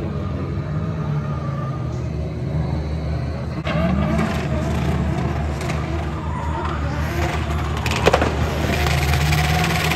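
A drift car's engine running steadily at idle, then, after a cut, a drift car's engine revving up and down as it drifts, with a sharp pop about eight seconds in and tyres screeching near the end.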